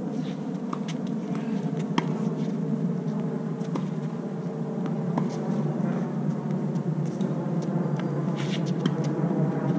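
Tennis rally: sharp pops of racket strings hitting the ball and the ball bouncing on a hard court, about one every second or so, over a steady low background hum.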